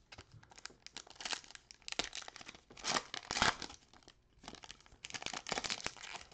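Foil wrapper of a Panini Select football card pack crinkling and tearing as gloved hands pull it open. The loudest rip comes about three seconds in, then a short lull and more crinkling as the pack is worked apart.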